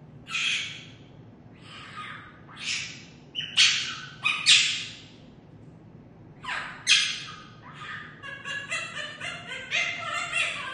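Parrot screeching: a string of loud, harsh screeches, then a quick run of short, pitched calls in the last few seconds. This is the sort of animal-imitating cry the bird is known for.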